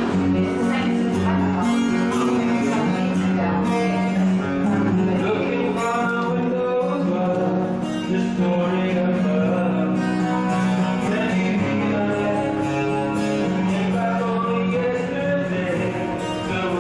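Music: a man singing with guitar accompaniment.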